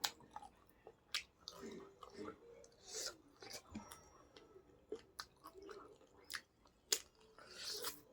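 Close-miked chewing and mouth sounds of a person eating, with irregular sharp smacks and clicks.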